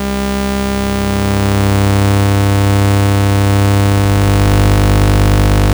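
Oscilloscope-music audio: synthesized sine, cosine and sawtooth waves with square waves added, heard as a loud steady buzzing drone with many overtones. It grows slightly louder over the first two seconds, and about four seconds in the low end changes into a fast pulsing.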